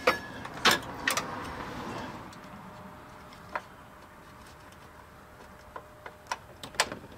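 Scattered sharp metallic clicks and clinks of hand tools and parts being handled during engine-bay reassembly: a few close together at the start, single ones in the middle, and two more near the end.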